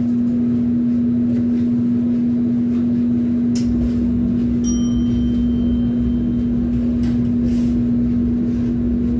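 Steady drone of running kitchen machinery: a constant, even hum over a low rumble, with a faint click or two about midway.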